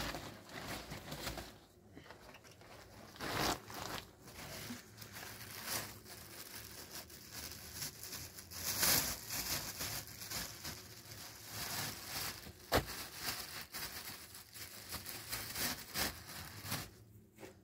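Plastic bag rustling and crinkling as it is opened and handled, along with a cloth being spread out, with a few light knocks.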